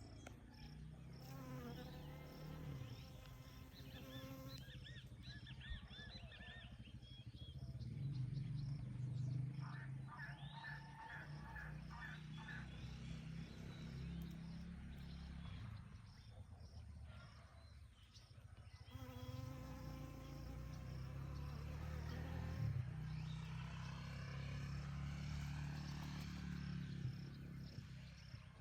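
Bees buzzing, a low steady drone that swells and fades as they move about, with high chirping calls over it at times.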